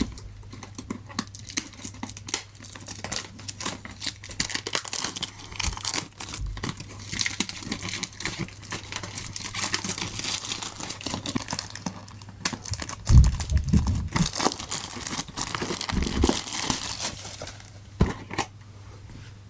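Plastic shrink-wrap being torn and peeled off a cardboard box, crinkling and crackling throughout, with a few dull knocks from the box being handled about two-thirds of the way through.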